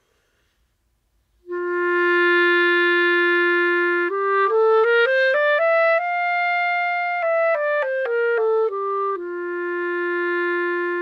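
Clarinet played on a full breath, starting about a second and a half in. It holds a long, steady low note, then steps up a scale of about an octave, holds the top note, steps back down, and holds the low note again.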